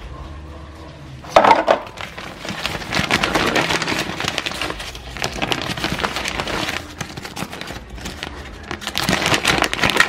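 Clear plastic bag crinkling and crackling as it is handled, starting sharply about a second in, easing off briefly and picking up again near the end.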